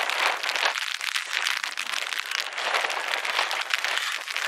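Steady rain pattering, a dense crackle of drops.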